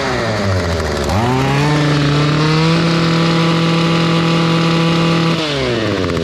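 Stihl string trimmer's small two-stroke engine running on its replacement ignition coil. It idles, is revved up about a second in and held at steady high revs, then drops back to idle near the end. It runs right, the sign that the correct coil for the trimmer's manufacture date is fitted.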